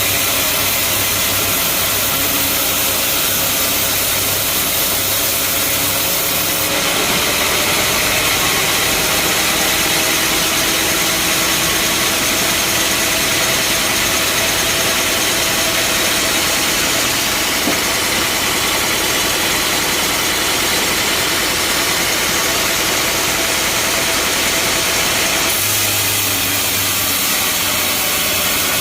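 Bandsaw sawmill running steadily, its band blade sawing through a large mahogany log; the sound shifts about seven seconds in and changes back near the end.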